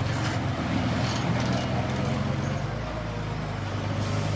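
Diesel engine of a Komatsu D21P bulldozer running steadily, its note dropping slightly a little past halfway.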